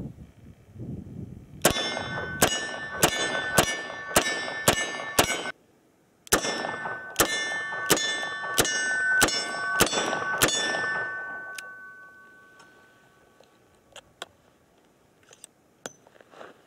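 Smith & Wesson 686 Plus .357 Magnum revolver fired with .38 Special rounds at steel targets: two strings of seven quick shots, each well under a second apart, every hit followed by the clear ring of struck steel. The steel rings on for a couple of seconds after the last shot, and a few faint clicks follow near the end.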